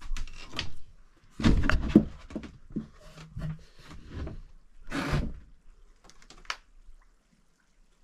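Handling noises: a string of knocks, thumps and clatters as things are moved and set down, loudest about one and a half to two seconds in and again around five seconds, stopping about seven seconds in.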